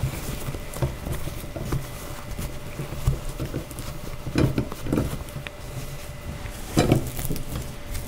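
Cloth rustling and a few soft handling bumps as hands smooth and tug a fabric liner and pleated skirt on a doll bassinet's frame.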